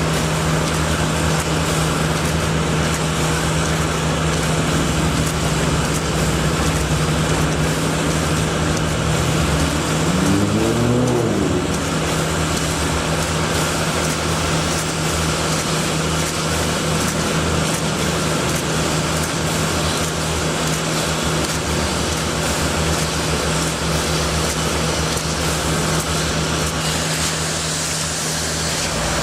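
Steady engine hum over continuous road-traffic noise, with one engine revving up briefly about ten seconds in.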